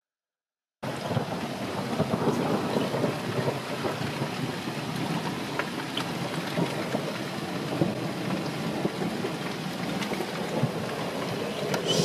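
Night thunderstorm: steady rain-like crackling noise with rumbles of thunder, cutting in abruptly about a second in.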